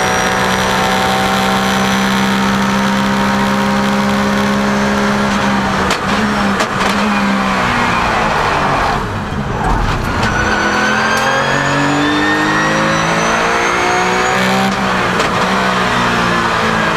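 Porsche 997 GT3 Cup race car's flat-six engine, heard from the cockpit, running on a 59 mm intake restrictor. It holds steady high revs for about five seconds, then the revs fall away, with a brief lift around nine seconds. After that it pulls hard again, the pitch rising through the gears, with a shift near fifteen seconds.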